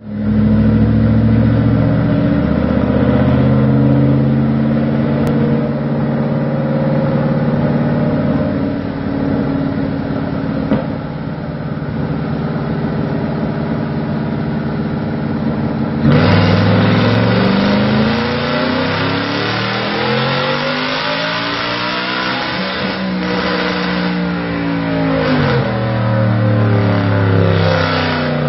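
Twin-turbocharged 5.0 L Coyote V8 in a Ford F-150 running steadily on a chassis dyno. About 16 seconds in it goes to full throttle for a pull on 14 psi of boost: the sound turns suddenly louder and harsher, and the pitch sweeps up as the revs climb, then falls back.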